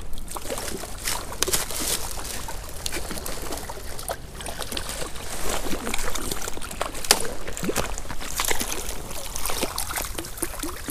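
Shallow creek water running, with irregular short splashes from a small brown trout thrashing at the surface on the line as it is played in.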